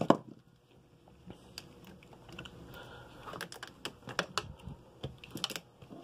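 Scattered small clicks and rattles of alligator-clip test leads being unclipped and pulled off a washing-machine circuit board, with one sharp click at the very start and a bunch of clicks in the second half.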